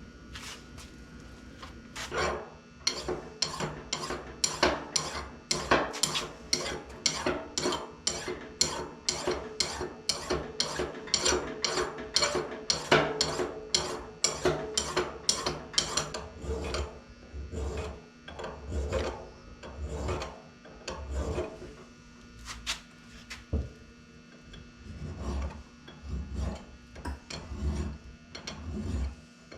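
Hand rasping or scraping on a part of a hydraulic lift cylinder: quick back-and-forth strokes, about two or three a second, starting about two seconds in and running for around fourteen seconds. They then turn slower and irregular, mixed with low thuds as the part is handled.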